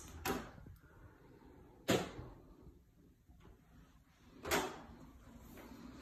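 Interior doors and closet doors being opened and shut. A small click comes just after the start, a sharp knock about two seconds in, and a longer clatter of bifold closet doors about four and a half seconds in.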